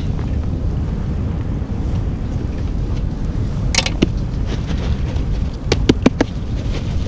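Wind buffeting the microphone as a steady low rumble. A few sharp clicks and knocks come through it, two a little under four seconds in and a quick run of four around six seconds.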